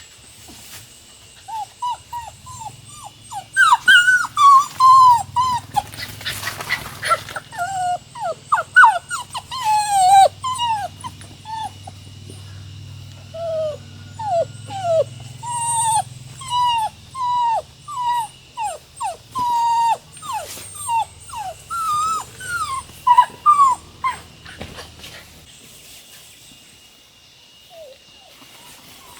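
A dog whining and whimpering: a long run of short, falling cries, a few per second, stopping about twenty-four seconds in.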